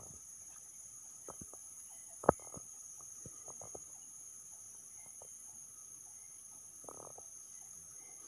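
Footsteps crunching and brushing through dry leaves and grass along an overgrown forest path, irregular and uneven, with one sharp crack about two seconds in. A steady high-pitched insect drone runs underneath.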